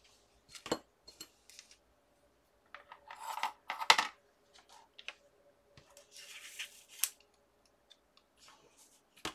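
Small desk-handling sounds of paper and tools on a cutting mat: scattered light clicks, a sharp clack about four seconds in as metal tweezers are picked up, and a paper rustle a couple of seconds later as the tag is slid and smoothed.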